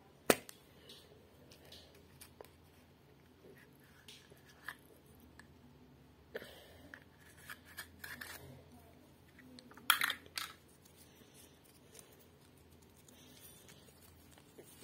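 Handling noise from a small plastic toy capsule and its folded paper leaflet being opened: one sharp plastic click just after the start, then scattered small clicks and paper rustles, with a louder burst of crinkling and clicking about ten seconds in.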